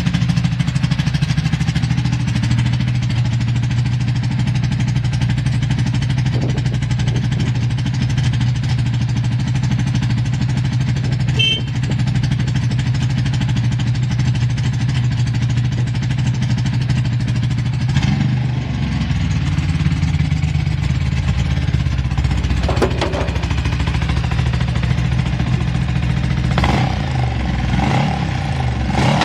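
Ducati 750 Paso's V-twin engine idling steadily just after starting, a stable idle free of abnormal noise. The idle settles slightly lower about two-thirds of the way in, with a few brief rises and falls in pitch near the end.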